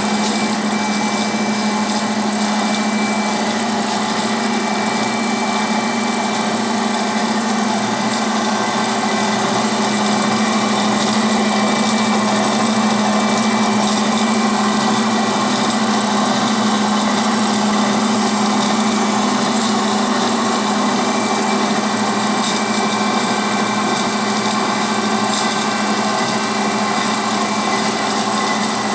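DoAll TF 14 band saw running with no cut under way: a steady machine hum with a strong low note and a fainter high whine that hold even throughout.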